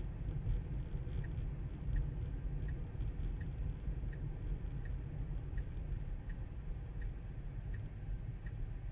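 Steady low road rumble of a Tesla driving; from about a second in, the turn-signal indicator ticks evenly, roughly once every three-quarters of a second.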